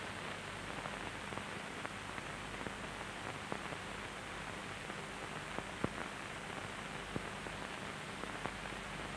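Steady hiss with a scattered handful of faint clicks and pops: the background noise of an old 1960 film soundtrack.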